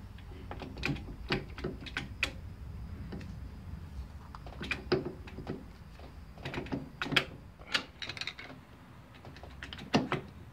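Irregular light metallic clicks and taps as a screwdriver levers a split gear into line and the flywheel rotor assembly is worked onto the crankshaft, gear teeth and metal parts knocking against each other.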